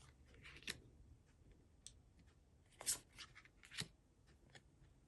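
Faint handling of Pokémon trading cards: a few short swishes and scrapes, the loudest about three seconds in.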